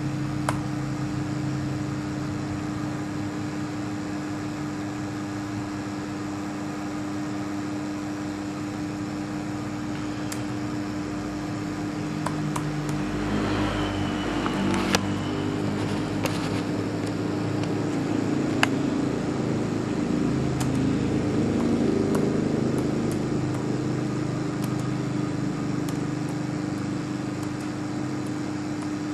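Steady machine hum with a constant low tone, and scattered sharp clicks from computer keyboard typing.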